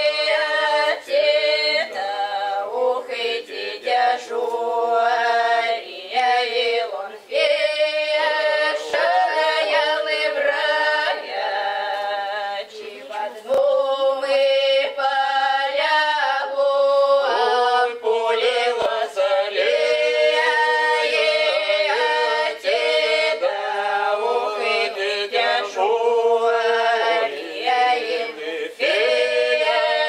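Cossack folk ensemble of women's voices and a man's voice singing a cappella a slow, drawn-out (protyazhnaya) historical song, with long held notes.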